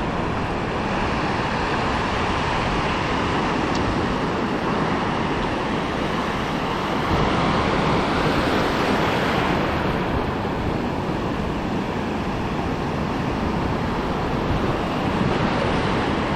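Ocean surf washing and breaking around a wading angler: a steady rushing noise that swells a little in the middle.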